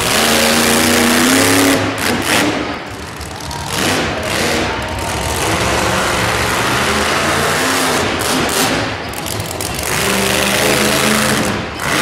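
Monster truck engine revving hard and easing off in repeated bursts, loud, with its pitch climbing in the first two seconds and again near the end.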